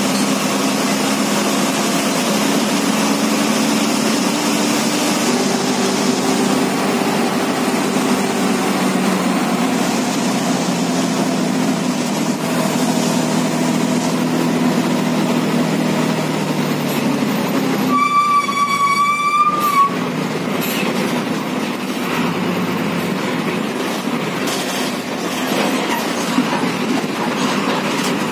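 Inside the cab of a moving MSRTC bus: the diesel engine runs with road and cabin rattle noise, its drone changing pitch a few times. About two-thirds of the way through, a horn sounds one steady blast lasting about two seconds.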